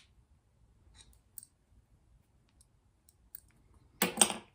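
Small sharp clicks from handling the metal parts of a door closer's arm and its replacement bolt, with a louder clatter of several clicks about four seconds in.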